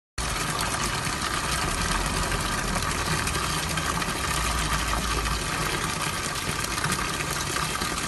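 Water from a tabletop rock-style fountain pouring from small spouts and spilling into its pools, a steady trickling and splashing.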